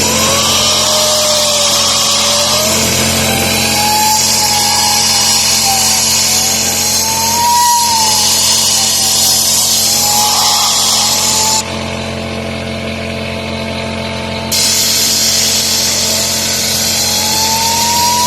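Compressed air hissing hard from a small air compressor's blow nozzle, with a wavering whine, as the furnace's sail switch is blown out. The hiss cuts off about twelve seconds in for about three seconds, then starts again.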